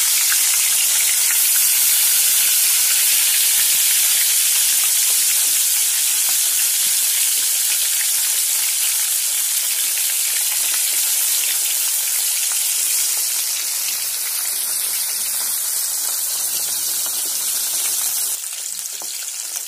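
Koi fish (climbing perch) deep-frying in hot oil: a steady, loud sizzle that eases a little in the last few seconds.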